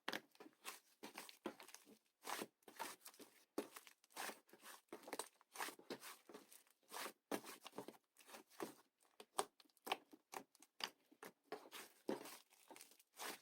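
Fluffy clay slime being squeezed and stretched by hand, giving a quiet, irregular run of small crackles and pops, several a second.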